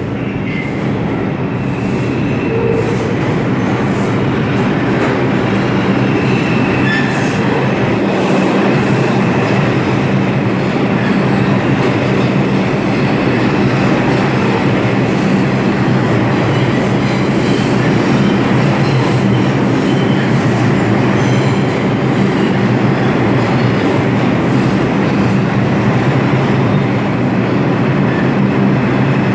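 A New York City subway train running into the station and along the platform: a loud, steady rumble of wheels and motors that builds over the first few seconds. A low hum runs under it, with light clicks of the wheels over the rail joints and a thin high squeal.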